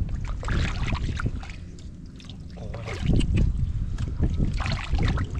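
Water and mud splashing and sloshing irregularly as hands grope in shallow muddy water, with wind rumbling on the microphone.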